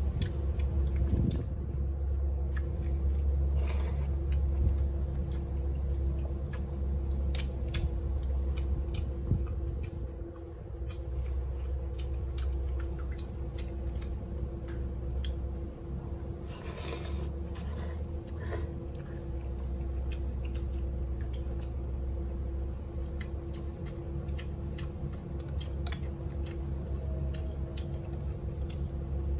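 A person eating: scattered short clicks and squishy chewing noises over a steady low hum.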